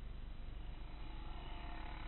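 Quad bike (ATV) engines running, over a steady low rumble of wind on the camera. An engine note grows louder about a second in as another quad comes close.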